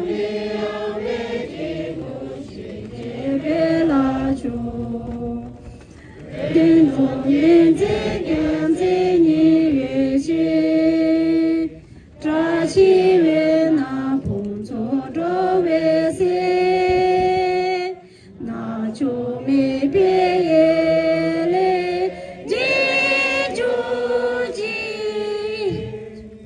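A group of people singing a Tibetan prayer together in unison, in sung phrases of a few seconds with short pauses between them.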